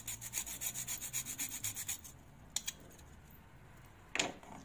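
Whole nutmeg being scraped rapidly on a fine stainless steel hand grater, in quick, evenly repeated strokes that stop about two seconds in. A sharp click follows near the end.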